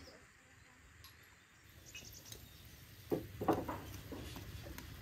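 Metal tongs knocking and clattering a few times against the pot and plate, about three seconds in, as fried walnut pastries are lifted out of the oil. A short high bird trill sounds once about two seconds in.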